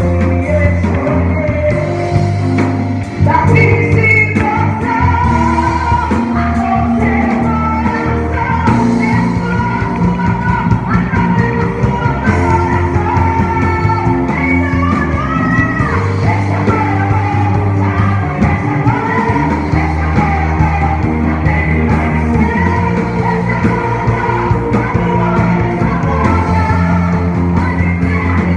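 Worship song performed by a band with a singing voice, over sustained bass notes.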